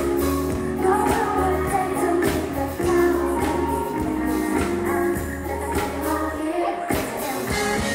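Thai girl-group pop song at a live stage show: female vocals over a steady dance beat, played loud through the concert sound system.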